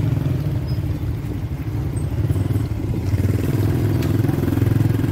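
Small motorcycle engine running close by at low road speed, with a fast steady firing beat that eases a little and then picks up again about three seconds in.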